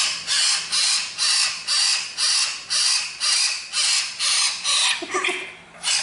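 Young hill myna giving harsh, hissing calls over and over, about two a second, with a short break about five seconds in.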